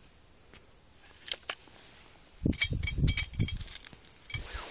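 Handling of an air rifle: a few faint clicks, then a cluster of sharp metallic clicks with a light ring and low knocks about two and a half seconds in, and one more click near the end.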